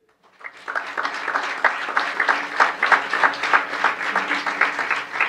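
Audience applauding: many hands clapping, starting about half a second in and quickly becoming dense and steady.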